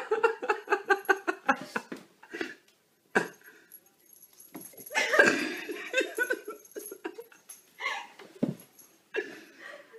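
A person laughing in quick pulsing bursts, at the start and again about five seconds in, with a short knock in between.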